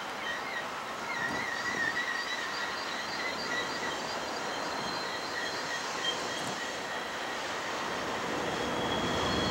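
Long freight train rolling downgrade around tight curves, its wheels squealing in high, wavering tones over steady rolling noise. A low rumble builds near the end.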